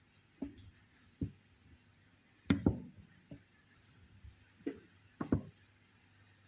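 Scattered knocks and clunks of cookware being handled, about eight separate hits, the loudest a quick pair about two and a half seconds in.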